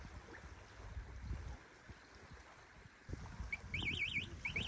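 Low rumbling outdoor noise, then about three and a half seconds in an electronic alarm starts a fast, regular high-pitched warble, breaks off briefly and starts again near the end.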